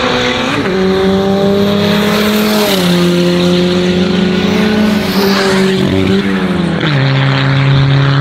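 Drag-racing cars with 1400 cc pushrod engines running hard down the strip. The engine note drops at each upshift: once about half a second in, again near three seconds and again near seven seconds.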